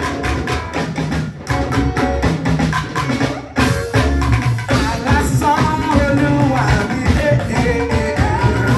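Church praise music with a steady drum beat, with singing over it in the second half.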